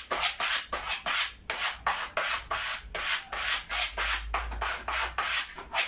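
Quick rubbing strokes across freshly hung wallpaper, about four a second, as the paper is smoothed flat onto the wall.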